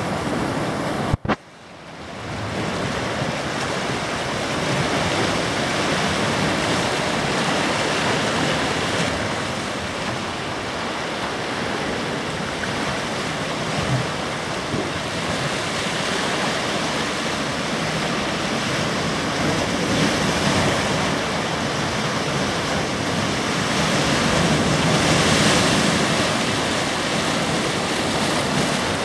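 Sea surf breaking and washing over a rough rocky shore: a continuous rushing wash that surges and eases, swelling louder near the end. A sharp click and a brief dropout come about a second in.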